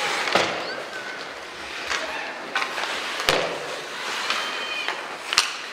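Ice hockey play: skate blades scraping on the ice, broken by about four sharp clacks of sticks and puck hitting.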